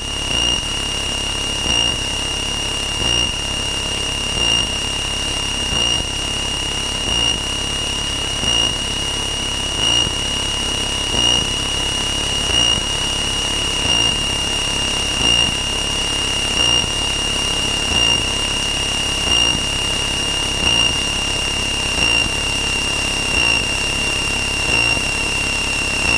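A steady, high-pitched electronic tone, like a warning tone, sounding over the drone of the Cessna 162's engine in the cockpit. It swells briefly about every second and a half.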